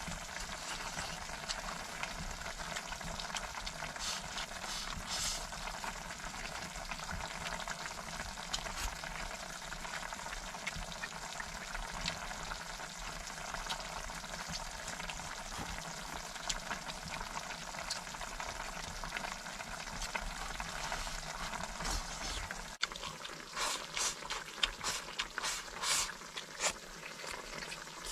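A pot of cabbage, pork and tofu stew simmering, a steady bubbling sizzle. About 23 seconds in the sound changes to louder, separate pops and clicks.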